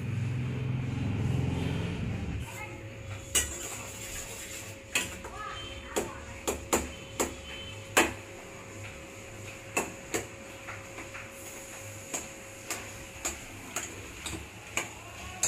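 A metal ladle and spoon stirring tomatoes in a stainless-steel pan on a gas stove, clinking against the pan's side. The sharp clinks start about two and a half seconds in and come irregularly, about a dozen of them.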